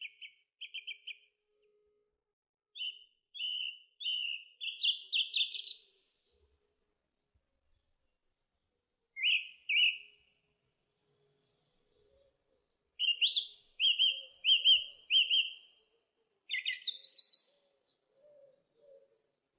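House sparrow chirping in bursts of quick repeated chirps, with pauses of a few seconds between the bursts.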